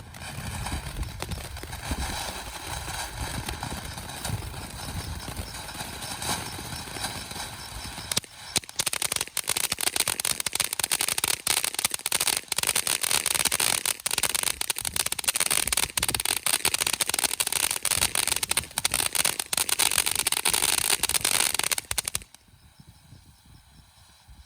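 Black Cat 'Little Big Show' firework fountain burning: a steady hissing spray, then about eight seconds in a dense fast crackle, which stops abruptly near the end as the fountain burns out.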